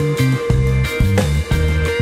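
Background music with a regular beat, a bass line that steps from note to note, and a held note above it.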